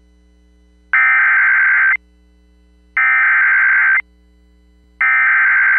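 Emergency Alert System SAME header: three one-second bursts of warbling digital data tones, each about a second apart, the coded signal that opens a broadcast weather warning.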